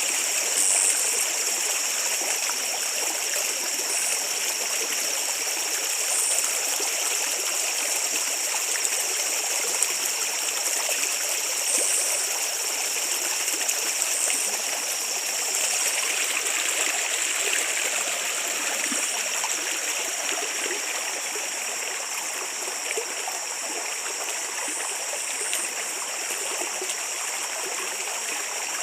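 Small stream running steadily over its bed, back at its normal flow after flooding the day before.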